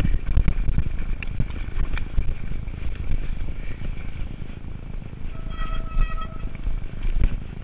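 Rocky Mountain Slayer mountain bike riding a rough, overgrown trail: heavy wind and ground rumble on the microphone, with frequent knocks and rattles from the bike over bumps. A brief high squeal sounds a little over five seconds in.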